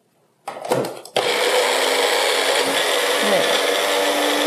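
A small kitchen blender switches on suddenly about a second in and runs steadily. It is blending soaked Medjool dates with their cooking water into a purée.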